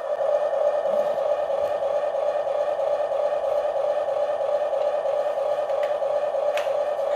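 Small electric motor and plastic gearbox of a toy remote-control construction machine whining at a steady pitch, with a few faint clicks.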